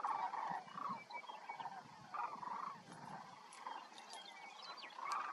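A flock of sandhill cranes calling, overlapping rattling calls in repeated bursts. A small bird adds a few high chirps from about three and a half seconds in.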